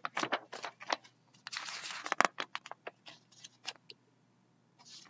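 Pages of a picture book being turned and smoothed flat: a run of paper rustles and crisp snaps, loudest a little over two seconds in, then a short pause and more rustling near the end.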